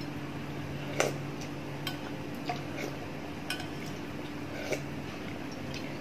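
A stainless steel cooking pot tipped up to drink broth from, with a few short clicks and clinks of metal pot and spoon, scattered and irregular, the clearest about a second in. A steady low hum runs underneath.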